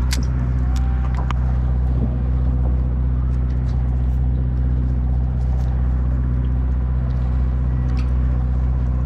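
A boat's engine running steadily at idle, a constant low hum. A few light clicks are scattered over it.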